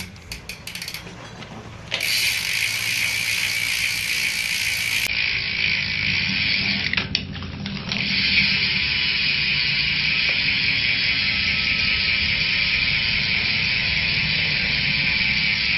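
Shadow Symbol BMX cassette hub freewheeling, its pawls clicking over the ratchet ring. A few separate clicks at first, then a fast, steady buzz from about two seconds in that briefly falters around seven seconds.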